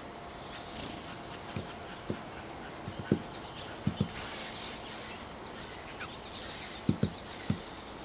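Tufted titmouse pecking at a birdseed cake: soft, irregular beak taps, some in quick pairs. One sharp click about six seconds in.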